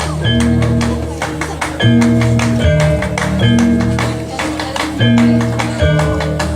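Live reog gamelan music: fast, dense percussion strikes over sustained low tones that step through a repeating pattern about every one and a half seconds.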